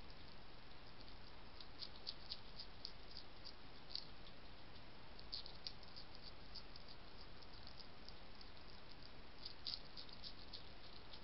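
European hedgehog chewing and crunching food: a run of small, irregular clicks and crackles in uneven clusters, over a steady hiss.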